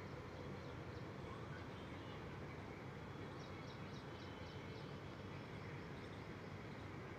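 Steady distant city background noise, with runs of faint high chirps repeating a few times a second, most of them around the middle.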